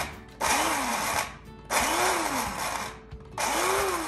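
Electric blade grinder pulsed three times, each burst about a second long, its motor whine rising and falling with every pulse as it grinds garlic, ginger and green chillies into a paste.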